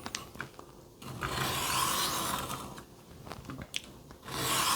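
Knife blade drawn along an electroplated diamond sharpening plate on a Worksharp Benchstone: two long, even rasping strokes, the second starting near the end.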